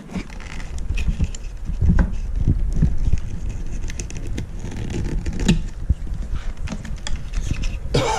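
Irregular small clicks, taps and knocks of hands working on a speaker's electronics module and its wire connectors, over a low rumble of handling noise.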